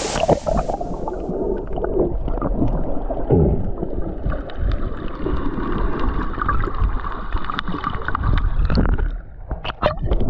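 Water gurgling and bubbling around a camera's microphone as it moves at and just under the sea surface, muffled and churning with many small pops.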